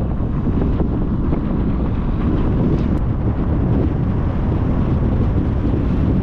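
Strong wind buffeting the microphone: a loud, steady rumbling rush.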